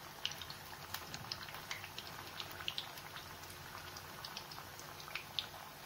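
Mathri (wheat-flour dough discs) deep-frying in hot oil over a low flame. The sizzle is faint and steady, with many small irregular pops and crackles from the bubbling oil.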